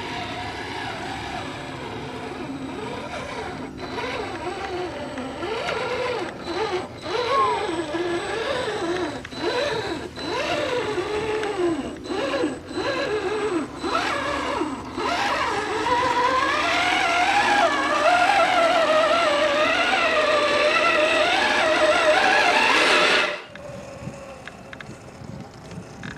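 RC scale crawler's electric motor and gearbox whining, the pitch rising and falling with the throttle in a run of short pushes, then a longer, louder sustained climb that cuts off suddenly near the end.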